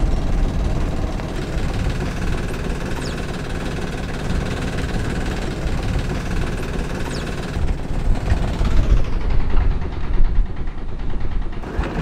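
Sailboat's inboard diesel engine running steadily at low revs, with wind noise on the microphone.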